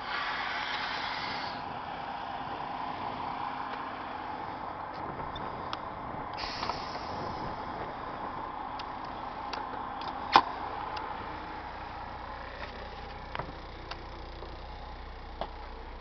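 Air hissing from a motor coach's air system, once for about a second and a half and again briefly about six and a half seconds in, over a steady hum. Scattered clicks and one sharp knock about ten seconds in are heard around the coach's entry door and steps.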